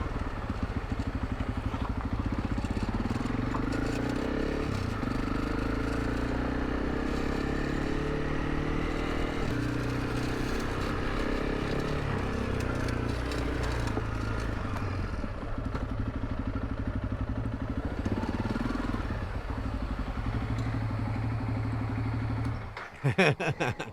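Honda CRF300 Rally's single-cylinder engine running as the motorcycle is ridden, its pitch rising and falling with the throttle and gear changes, freshly rebuilt and running well. The sound cuts off abruptly near the end.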